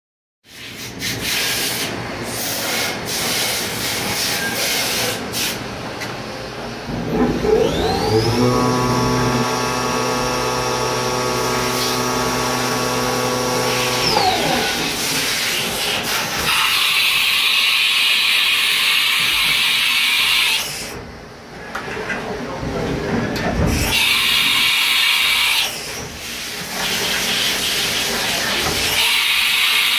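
Haas VF-0 CNC vertical machining centre running a test program. Its spindle whines up to a commanded 7500 rpm about seven seconds in, holds a steady whine of several tones for about six seconds, then winds down. Later come stretches of hissing coolant spray, machine clatter and one low knock a little after halfway.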